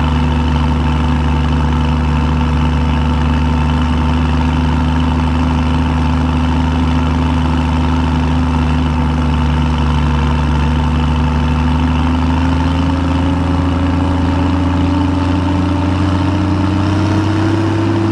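Case 165's engine running steadily at idle with a smooth, even rumble, its speed creeping up slightly over the last several seconds.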